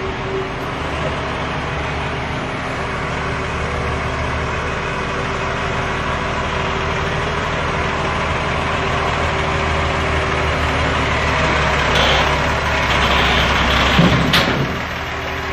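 Forklift engine running steadily, getting louder for a couple of seconds near the end, with a single sharp clank just before the end.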